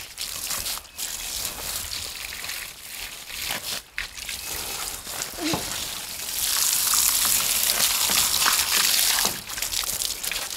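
Garden hose spraying water onto a rotary tiller's metal housing, splashing and dripping off it. The spray gets louder about six seconds in and eases about three seconds later.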